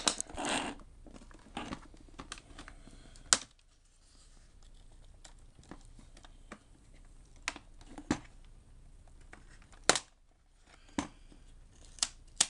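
Plastic snap-fit clips of an HP 630 laptop's top case clicking and cracking as it is pried off the base, in scattered sharp clicks with some rustling in the first second; the loudest snaps come about three and a half and ten seconds in.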